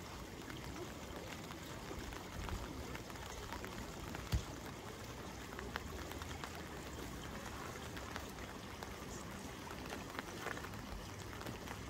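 Steady patter of falling or running water, with one dull thump about four seconds in.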